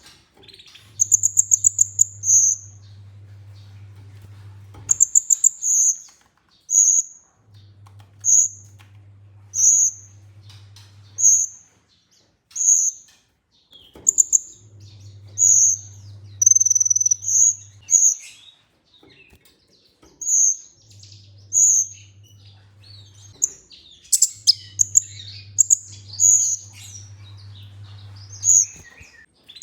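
Kolibri ninja sunbird calling: a string of short, high, sharp chirps, about one a second, with a few quick trilled runs. A low steady hum comes and goes in stretches of a few seconds.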